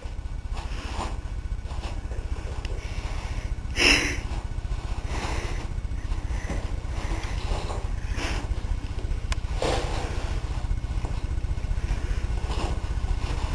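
Steady low rumble, with scattered rustles of toilet paper as kittens scramble through a pile of it. One louder brief rustle comes about four seconds in.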